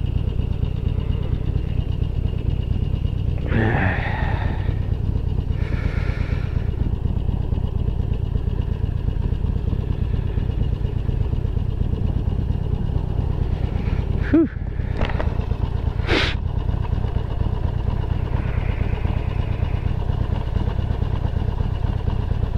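Harley-Davidson Sportster 1200's air-cooled V-twin idling steadily while the bike sits stopped. A few short, sharp clicks come about two-thirds of the way through.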